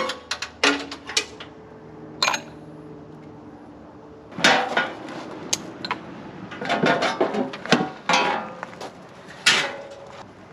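Metal clanking and knocking as hand tools work on sheet-metal engine and exhaust parts. A knock about a second in leaves a ringing tone for a few seconds, followed by three rougher clattering, scraping bursts.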